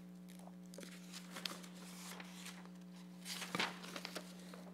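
Low steady electrical hum under faint rustling and crinkling of paper, with a louder cluster of rustles about three and a half seconds in.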